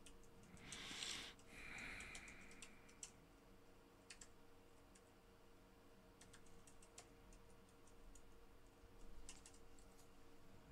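Near silence with faint, irregular clicks of a computer mouse and keyboard over a low room hum, and a brief breathy rush of noise about a second in.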